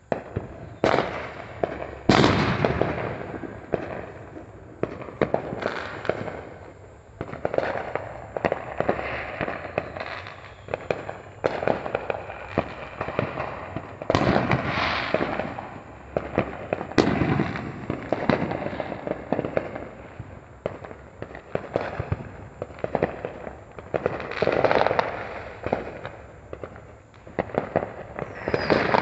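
Many fireworks going off at once: a steady crackle of firecrackers with sharp bangs, and several louder booming reports that echo briefly.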